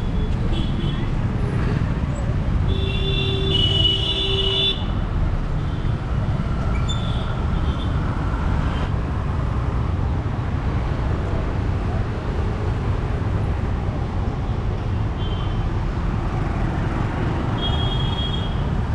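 Busy street traffic of motorbikes and cars, a steady low rumble, with short horn beeps; the longest runs about two seconds, a few seconds in.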